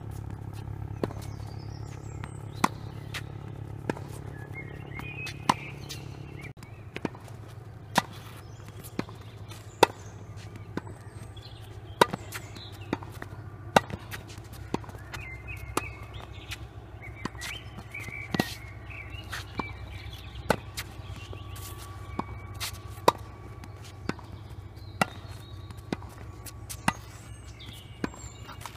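Tennis ball struck by a racket and bouncing on a hard court: a sharp pop about once a second, over and over.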